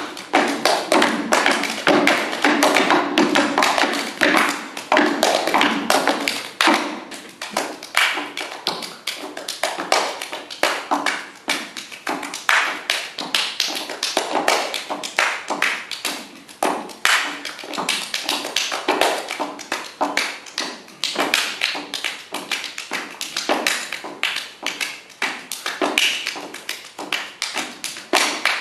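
Body percussion by two performers: fast, rhythmic hand claps and slaps on chest and thighs, with foot stomps on a wooden stage floor.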